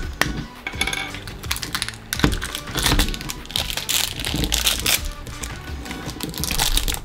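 Plastic wrapping crinkling and clicking as the layers of an L.O.L. Surprise ball are peeled open, with background music underneath.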